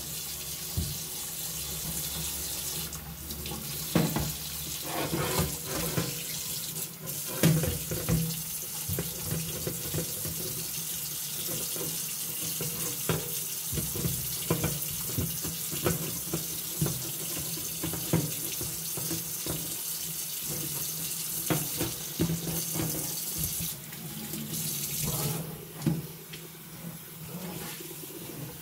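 Kitchen faucet running water onto a metal baking sheet in a stainless steel sink while the sheet is scrubbed with a sponge and moved about, with repeated short knocks and clanks of the pan against the sink.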